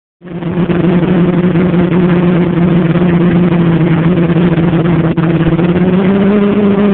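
Electric motors and propellers of a multirotor drone in flight, a loud steady hum that cuts in suddenly about a quarter second in, holding one pitch and rising slightly near the end.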